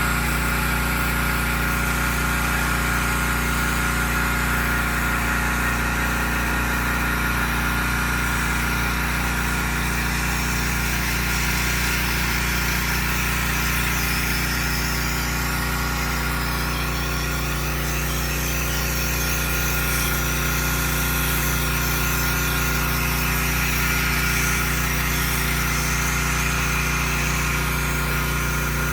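Soft-wash spraying rig's pump running steadily under load, a constant mechanical drone with a thin steady whine and the hiss of the spray.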